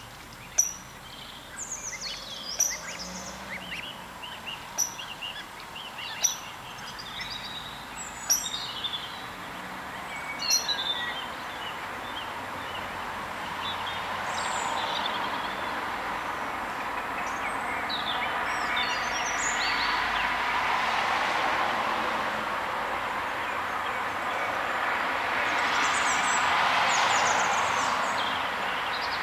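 Scattered short, high bird chirps and peeps through the first half. From about halfway a steady rushing noise swells up, rising and easing twice, and outweighs the chirps.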